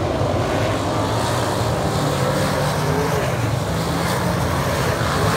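A pack of winged sprint cars racing past, their V8 engines running hard in a steady, loud roar of several engines, with pitches sliding up and down as individual cars go by.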